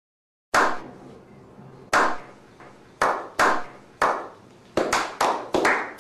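A slow clap: single hand claps over a second apart, each trailing off in an echo, then quickening to about three a second near the end as several more people join in.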